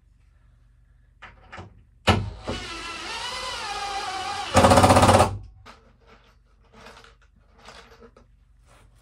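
Cordless impact driver driving a screw into wood: the motor spins for about two and a half seconds, then the impact hammering kicks in, louder, for under a second as the screw seats. Light knocks and taps of handling before and after.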